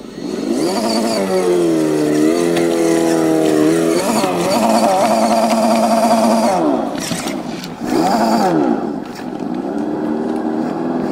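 Scale RC crawler truck's electric motor and geared drivetrain whining under load on a steep rock climb. The pitch rises and falls with the throttle, holds steady for stretches, and drops away briefly about seven seconds in.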